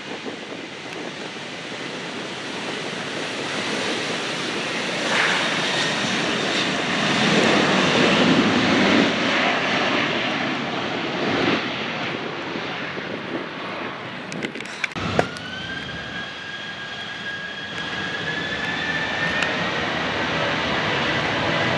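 Aircraft engine noise from a plane passing at an airport, swelling to its loudest about a third of the way in and then easing off. From about two-thirds through, a steady whine rises slowly in pitch.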